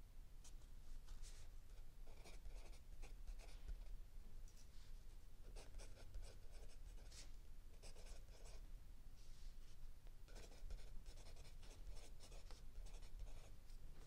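Mechanical pencil writing on lined notebook paper. Faint, scratchy strokes come in quick runs, with short pauses between them.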